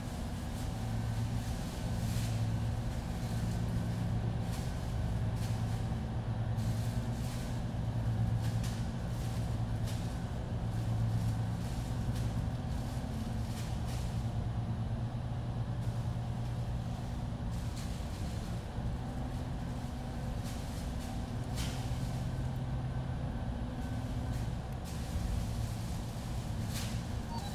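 Steady low droning hum of room machinery, with small scattered clicks and taps as tiny circuit boards and a ribbon-cable connector are handled on a rubber bench mat.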